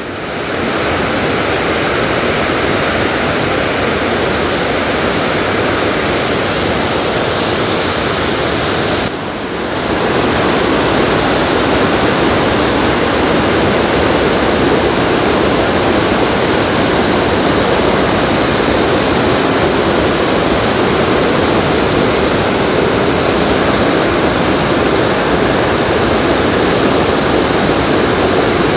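The Rhine Falls, a large waterfall, pouring: a loud, steady rush of falling water. It dips briefly about nine seconds in and comes back a little louder.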